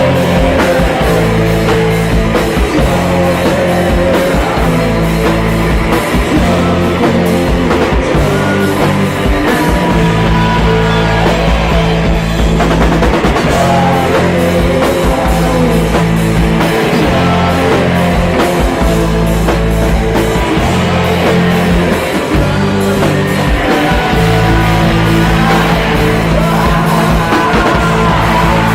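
Rock band playing a song loudly, with a steady drumbeat and held bass notes.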